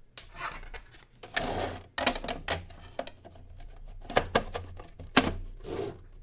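Irregular clicks and knocks of a CyberPower 625VA UPS's plastic case being handled and fitted back together, with a short scraping slide about a second and a half in.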